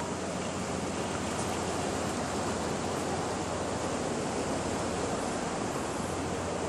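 Sea surf washing steadily over a rocky shore, a continuous even rush.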